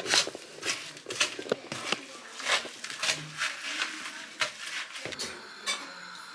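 A spoon stirring a sticky Rice Krispie and chocolate mixture in a bowl, scraping and knocking against the bowl in irregular clicks, about two or three a second.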